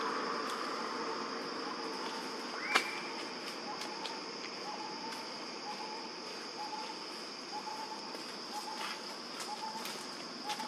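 Forest insects droning steadily on one high pitch, with a soft short note repeating about every two-thirds of a second from a few seconds in. A single sharp click about three seconds in is the loudest sound, and a few faint clicks are scattered through.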